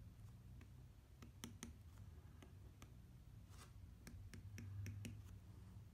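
Faint, irregular clicks and taps of an Apple Pencil's hard plastic tip striking an iPad Pro's glass screen while drawing and writing, over a low steady hum.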